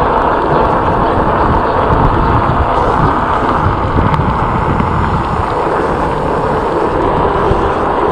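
Steady wind rushing over the microphone of a moving e-bike, over a low, uneven rumble of tyres rolling on a rough concrete path.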